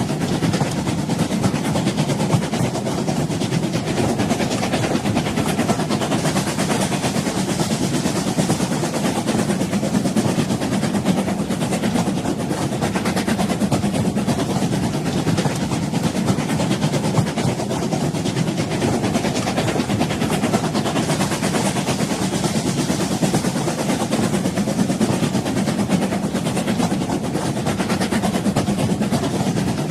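A train running steadily along the track: a continuous rumble and rattle that neither builds nor fades.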